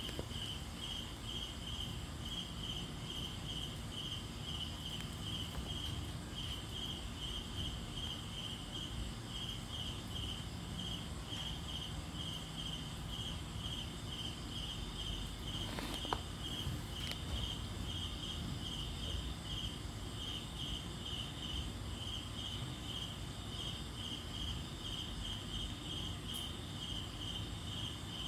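A cricket chirping steadily: a single high chirp repeating about three times a second, over a low background rumble.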